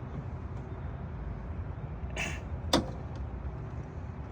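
Fingers working the cramped plastic hood-release latch of a Chevrolet Silverado 2500 HD: a short scrape about two seconds in, then a sharp click, over a steady low rumble.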